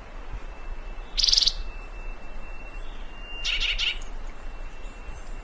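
Thick-billed euphonia calling: two short, fast-trilled buzzy notes about two seconds apart.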